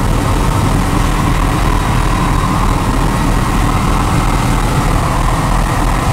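Helicopter engine and rotor noise heard from inside the cabin in flight, a loud, steady drone.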